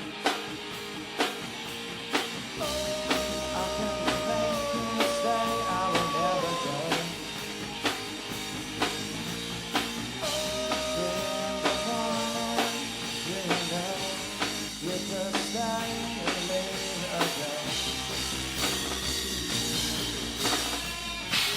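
Rock band playing a song: a steady drum beat under guitar and bass, with a held melody line over it.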